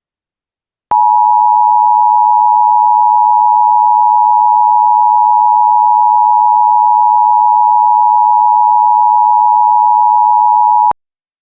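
Emergency Alert System two-tone attention signal, 853 and 960 Hz sounded together, held steady and loud for about ten seconds. It starts about a second in and cuts off sharply near the end. It is the alert tone of an EAS monthly test, which comes before the spoken test announcement.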